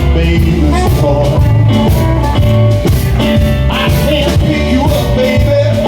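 A band playing an upbeat rock-and-roll blues instrumental passage, with a steady drum beat and a strong bass line.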